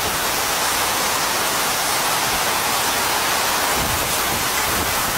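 Hurricane eyewall wind and heavy driving rain: a steady rushing hiss that does not let up.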